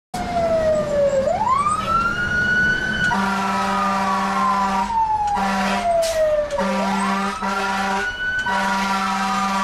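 Fire engine siren heard from inside the cab, wailing with a quick rise and a slow fall, twice. Over it the truck's air horn sounds four blasts, the first the longest, as the engine closes up on a truck ahead.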